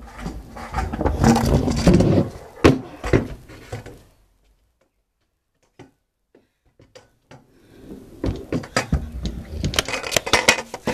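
Kick scooter rolling and clattering, its wheels and deck knocking, in two bouts: one over the first four seconds and another from about eight seconds in, with a few scattered knocks between.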